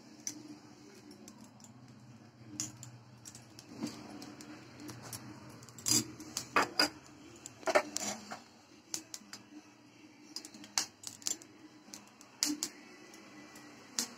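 Scattered metal clinks and taps of a steel spoon and a frying pan knocking on a gas stove's burner grate as oil is spooned in and the pan is tilted to spread it, with a cluster of louder clinks a little past the middle.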